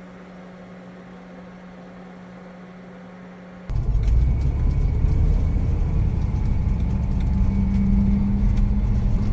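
A quiet steady hum, then an abrupt cut to the loud, steady low rumble of a motorhome driving, heard from inside the cab. Over the rumble a faint steady whine is heard from the transmission, a noise the owner is unhappy about.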